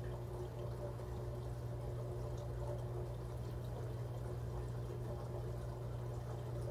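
Reef aquarium's equipment running: a steady low pump hum with water trickling and splashing, unchanging throughout.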